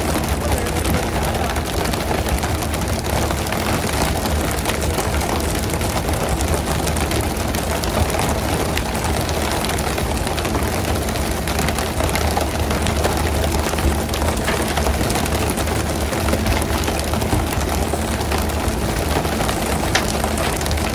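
Steady drone of a pole-and-line tuna boat's engine, with the hiss of its water sprayers spraying off the stern onto the sea surface.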